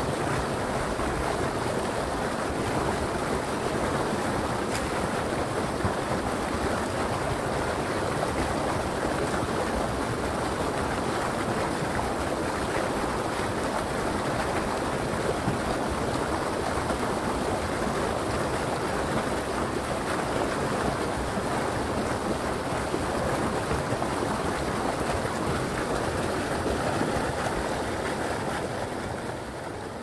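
Forest river rushing: a steady, even rush of flowing water that starts to fade out near the end.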